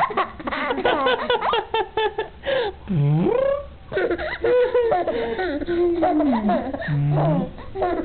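A baby makes funny blowing noises with her mouth pressed against a man's forearm, mixed with laughter in quick bursts and long gliding swoops.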